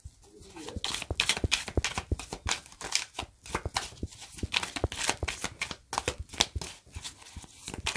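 A thin-cardstock tarot deck being shuffled by hand: a quick, uneven run of soft card flicks and snaps that starts after about a second and keeps going.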